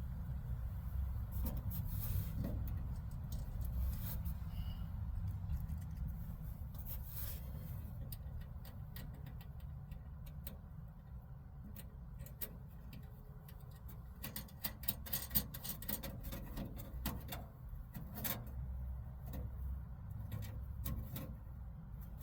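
Scattered small metal clicks and rattles from hand work on a car door's inner parts, thickest about two-thirds of the way through, over a steady low rumble.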